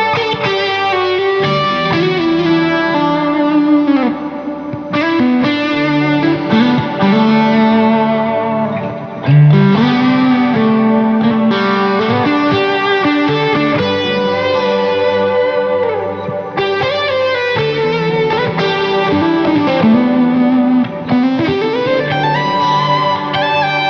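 Electric guitar played through an SSD 90 Fuzz pedal: sustained, thick fuzz-distorted notes and phrases, with several string bends and slides.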